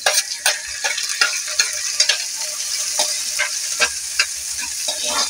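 Garlic, onion and ginger sizzling in hot oil in a metal wok, sautéing, while a metal spatula stirs and scrapes against the pan, giving a steady sizzle broken by frequent short scraping clicks.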